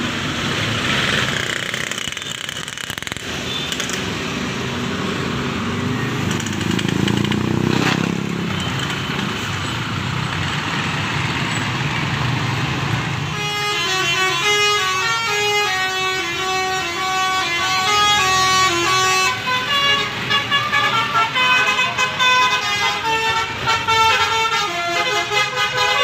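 A coach's engine rumbles as it pulls past close by. From about 13 seconds in, a basuri (telolet) musical bus horn plays a tune of short notes stepping up and down, which goes on to the end.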